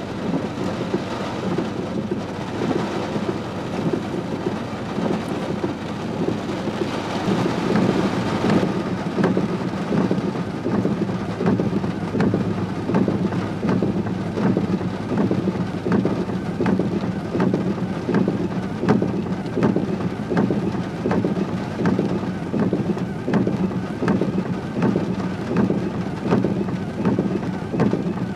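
Heavy rain pouring down, a steady rushing noise. About eight seconds in it turns lower and heavier, with an even pulsing.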